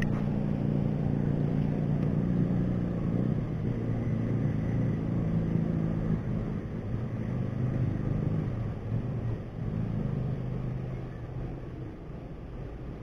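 A motor vehicle engine running steadily with a low hum, fading away over the last few seconds.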